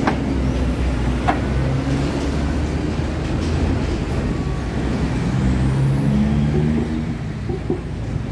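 Steady low rumble of road traffic, motor vehicles running near the level crossing, with a hum that swells a little past the middle. Two sharp clicks, one at the start and one about a second later.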